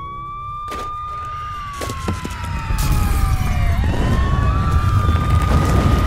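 Warning siren wailing, the signal that starts an earthquake drill: its pitch holds high, sinks slowly, then rises and holds again about 4 seconds in. A low rumble swells beneath it about 3 seconds in.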